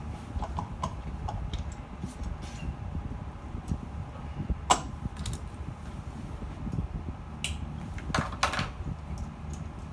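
Short metallic clicks and knocks as the gauge and cable-head parts are handled and fitted together: one sharp click about halfway and a quick cluster of knocks near the end, over a steady low hum.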